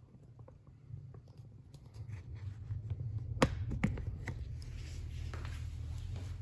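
Handling and rustling sounds over a low rumble, with two sharp clicks about three and a half seconds in.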